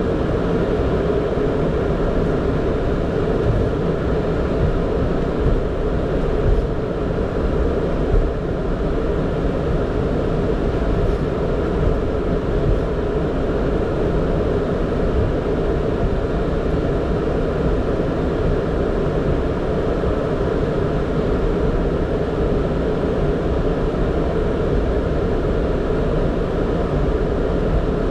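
Steady rumble and hum inside a Boeing 767 flight deck as the aircraft taxis with its engines at idle.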